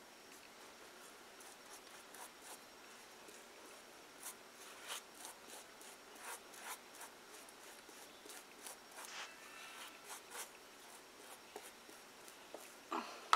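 Paintbrush scratching and dabbing over the paper-covered cardboard wall of a dollhouse, in faint, irregular short strokes that become frequent after the first couple of seconds.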